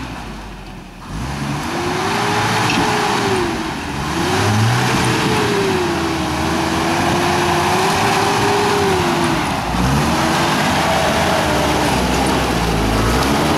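Lifted Toyota pickup's engine revving under load as the truck crawls up a rocky hill, its pitch rising and falling with the throttle. It dips about a second in, climbs and holds high for several seconds, then drops off and picks up again near the end.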